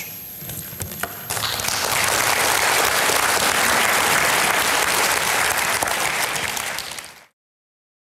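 Audience applauding, starting about a second in as a dense steady clatter of many hands, then cut off abruptly near the end.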